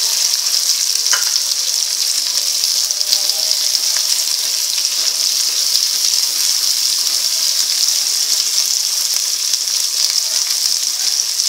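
Sliced onions sizzling steadily in hot oil in a kadhai as they are sautéed towards browning, stirred with a spatula, with a couple of light knocks of the spatula against the pan.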